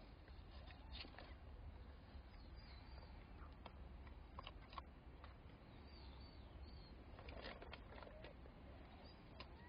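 Near silence: faint scattered clicks and rustles of newborn kittens squirming on newspaper bedding, with a few faint, short high chirps.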